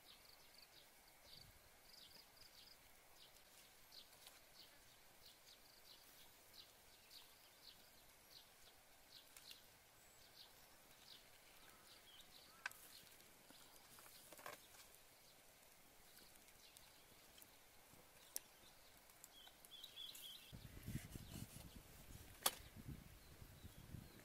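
Faint outdoor quiet with a high chirp repeating one to two times a second and a few sharp clicks. Near the end a wooden pestle starts pounding chili and garlic in a clay mortar, a dull, rapid thumping.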